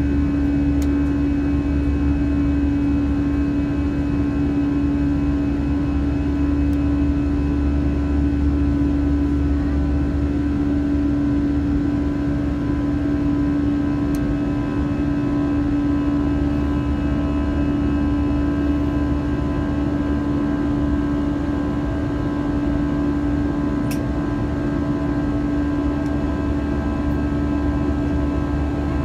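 Cabin noise of an Airbus A320 climbing after takeoff, heard from a seat inside the cabin: a steady low rumble of engines and airflow with a steady hum and several fainter even tones above it.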